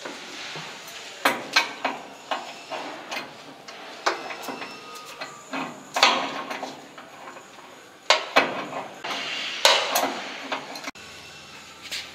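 Irregular metallic clinks, knocks and scrapes of a wrench working on the hose fitting inside a painted steel hose-reel drum, several of them sharp and loud.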